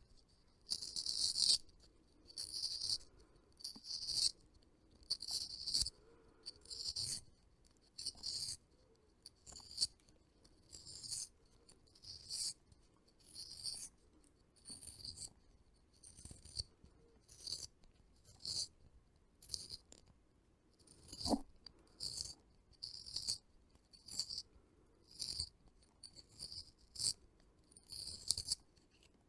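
Blue pencil being turned in a small handheld plastic pencil sharpener, the blade shaving the wood in a steady run of short rasping strokes, about one every three-quarters of a second, until it stops near the end. One sharper knock comes about two-thirds of the way through.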